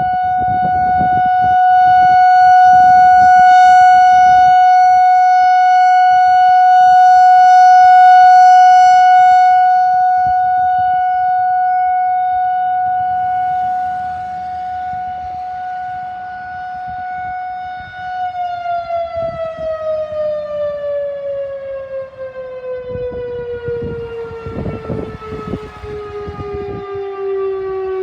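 Whelen WPS 4004 electronic outdoor warning siren sounding a steady tone during a test, swelling and fading in loudness. About eighteen seconds in, its pitch begins a slow downward glide, the electronic imitation of a siren winding down. Low rumbles come and go underneath.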